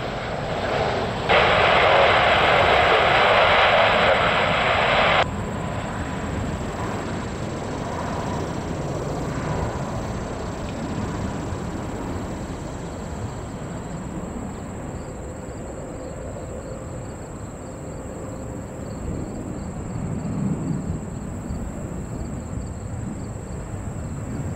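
Steady noise from a jet airliner's engines, a low rumble with no clear pitch. Near the start, a burst of air-traffic-control radio hiss cuts in and cuts off sharply about four seconds later.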